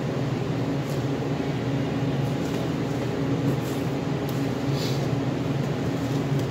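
Steady hum and whoosh of an electric fan running, with a few faint knife strokes on a plastic cutting board as beef is trimmed.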